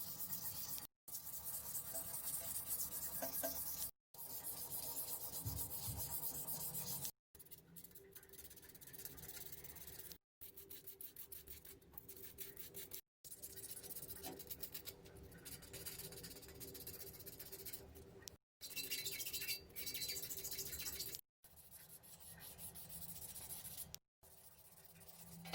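Sandpaper rubbing back and forth by hand on a bicycle frame, sanding it down for a repaint. The strokes come in short stretches of a few seconds, each cut off abruptly by a brief silence.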